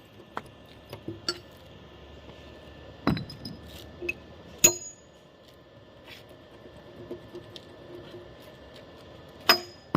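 Irregular sharp metal-on-steel strikes, each with a short ringing, from work on the excavator bucket's steel teeth; a few light taps and three louder clanks, about three seconds in, about four and a half seconds in, and near the end.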